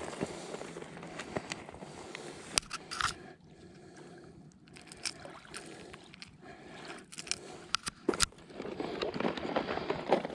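Close handling noise of a landed leerfish hanging from a lip-grip with the lure in its mouth: scattered sharp clicks, scrapes and crunches as fish and gear are turned in the hand. It goes quieter for a couple of seconds after about three seconds in and gets busier near the end.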